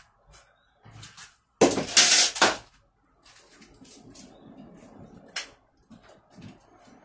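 Rustling and scraping from handling potting soil: a loud rush of noise about two seconds in, then quieter crunching and scraping with a sharp click.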